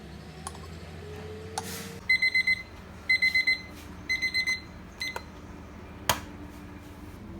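An electronic alarm beeping in three rounds of four quick, high-pitched beeps, the rounds about a second apart. A few sharp clicks fall around it, the strongest near the end.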